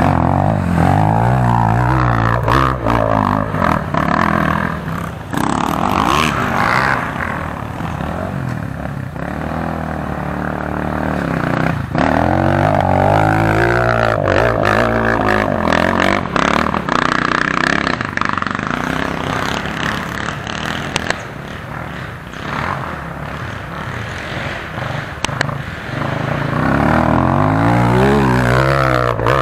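Enduro dirt bike engines revving up and down under load on a hill climb. Near the end one bike passes close, its pitch rising and then falling.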